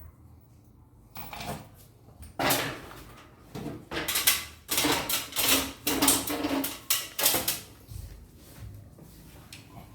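Irregular scraping and knocking of wooden or MDF cabinet parts being handled and slid about, with a quick run of short scrapes through the middle.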